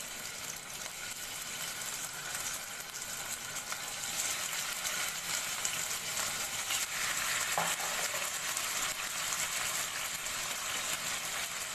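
Marinated chicken pieces sizzling as they shallow-fry in hot vegetable oil in a nonstick wok. The sizzle grows louder over the first few seconds as more pieces go into the oil, and there is one faint knock just before the 8-second mark.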